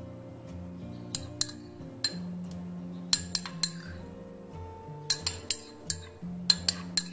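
Metal spoon clinking and tapping against small ceramic bowls as rice is spooned into them: about a dozen sharp clinks in small clusters. Soft background music plays underneath.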